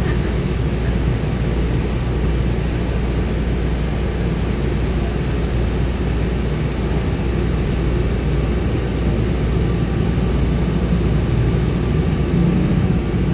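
Shuttle bus under way, heard from inside: a steady engine and road rumble.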